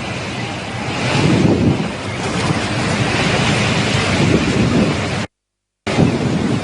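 Strong cyclone winds gusting against the microphone: a dense, loud rush of noise that swells and eases with the gusts. It cuts out completely for about half a second about five seconds in.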